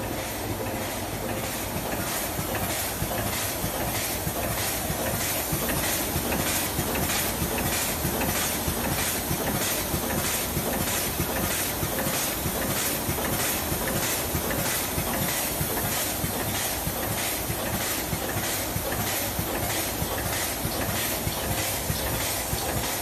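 A high-speed sugar powder packing machine running, with a steady mechanical clatter and hiss and a regular clack about twice a second.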